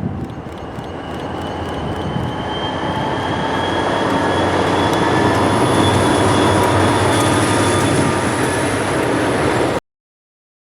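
EMD GP40 diesel locomotive approaching and passing close, its engine drone and a high whine growing steadily louder over several seconds, then holding. The sound cuts off abruptly near the end.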